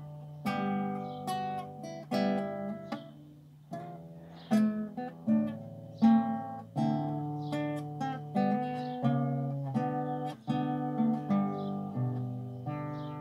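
Classical guitar played fingerstyle, a slow Andante: single plucked melody notes and chords over held bass notes, each note ringing and fading.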